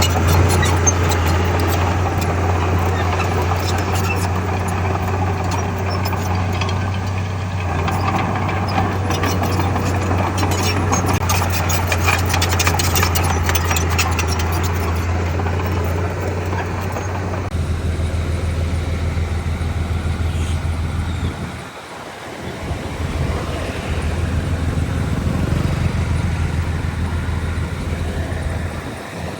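Diesel engine of heavy earthmoving machinery running steadily under load, a deep drone with rattling and clatter over it through the first half. The sound changes abruptly about two-thirds of the way in and drops briefly soon after.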